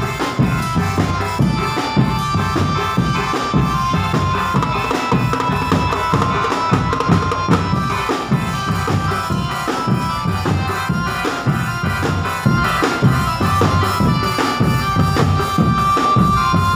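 Can macanan drumband playing: dense, driving bass drum and snare beats under a held, high melody line that steps between a few notes.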